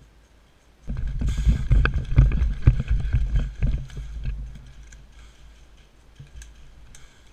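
Movement noise from running with a head-mounted GoPro: footfalls and gear knocking and rattling over a low rumble. It starts about a second in and fades out after about four seconds.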